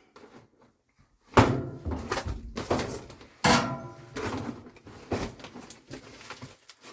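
Two loud knocks, then scraping, clattering and smaller bumps as things are handled in a small room. The second knock leaves a short ringing tone.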